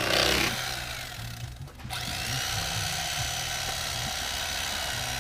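Electric carving knife running, its blades buzzing with a steady motor hum and a high whine as it slices through a cooked prime rib roast. The sound dips briefly about a second and a half in, then the whine comes back up and holds steady.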